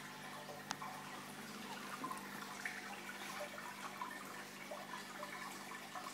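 Reef aquarium water fizzing and trickling as a dense stream of fine air bubbles rises and breaks at the surface, over a low steady hum. A single sharp click comes a little under a second in.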